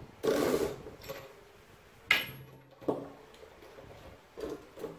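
Hand tools being handled and set down on a table: a few separate knocks and clinks, the sharpest about two seconds in.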